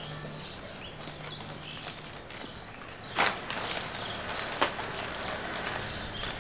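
Outdoor farm background with a steady low hum and faint short chirps, broken by two sharp clicks about three and four and a half seconds in, the first the louder.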